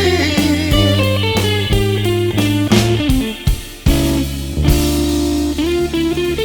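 Electric blues band playing an instrumental passage with no vocals: electric guitar lines over a steady bass and drums.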